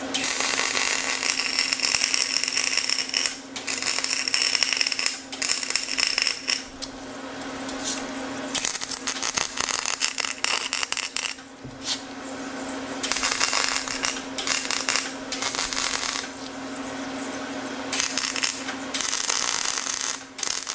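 Electric arc welding on the heavy steel blade yoke of a Cat D5C dozer with a Lincoln welder. The arc crackles and hisses in several runs of a few seconds each, with short breaks between the beads, over a steady low hum.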